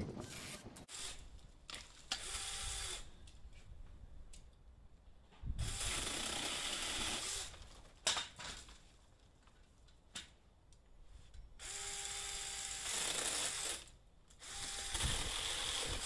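Mini cordless chainsaw running in short bursts, about four of them, each a second or two long with pauses between, as it cuts through cherry branches.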